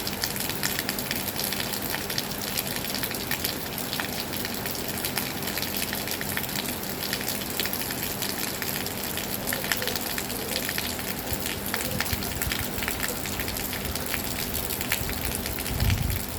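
Heavy rain falling steadily, a dense patter of drops. Near the end a low rumble swells up under the rain.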